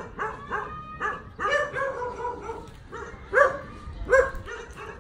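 A small dog yipping and whining over and over in short high-pitched calls, one drawn out longer, with the two loudest yips about three and a half and four seconds in.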